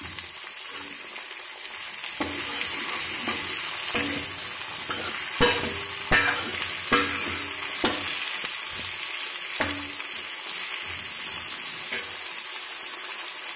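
Capsicum, onion and tomato pieces sizzling in mustard oil in a metal kadhai, a steady frying hiss. A steel ladle stirs them, scraping and knocking against the pan at irregular intervals from about two seconds in, loudest around the middle.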